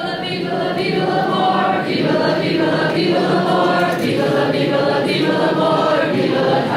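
Live singing amplified through PA speakers, several voices holding sustained notes together over a band's accompaniment.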